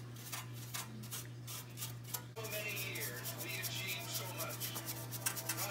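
Bristle paint brush sweeping dust off an Xbox One's metal bottom plate and fan grille, a quick run of scratchy strokes about three a second.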